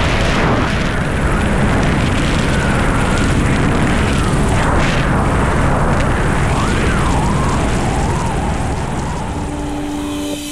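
Loud, steady rush of wind and helicopter noise at the helicopter's open door, buffeting the camera microphone.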